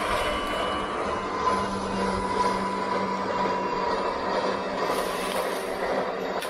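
A four-wheel drive hauling on a rope to hoist a deer carcass up into a tree: a steady mechanical hum with a whine under the load.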